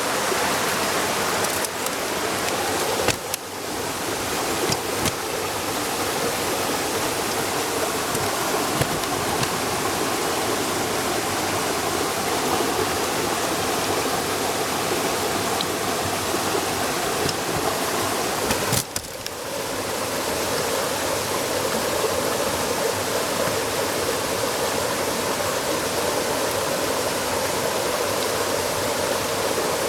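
Bonfire crackling with a steady loud hiss, the sizzle of meat and bamboo shoots grilling over the flames, with small pops scattered throughout.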